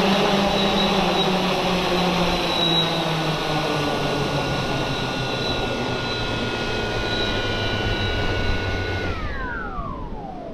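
Quadcopter fishing drone's electric motors and propellers whirring steadily on the ground with a high whine, then spinning down about nine seconds in, the pitch falling smoothly as they slow.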